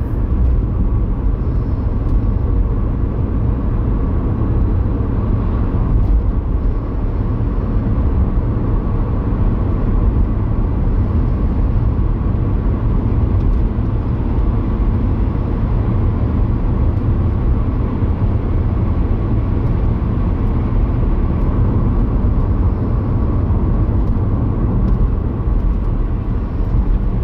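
Car driving along a road, with a steady low rumble of road and engine noise heard inside the cabin.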